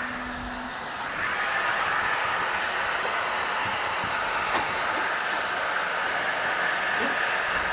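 Heat gun running with a steady blowing hiss that gets louder about a second in. It is heating the foam adhesive that holds a van roof support beam, to soften it for removal.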